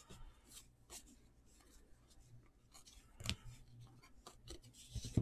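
Faint rubbing and scattered light clicks of baseball trading cards being handled and flipped through, with a sharper click about three seconds in and a few more near the end.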